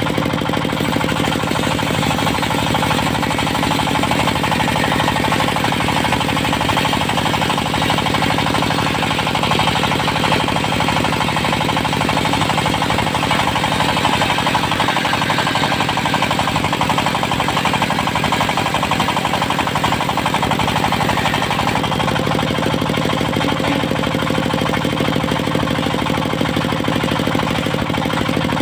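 Diesel engine of a portable circular sawmill running steadily with a fast, even clatter, the saw blade spinning with it.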